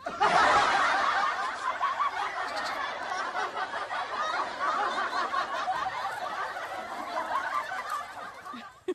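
A crowd of people laughing and shouting at once, many voices overlapping in a continuous din that starts suddenly and fades out just before the end.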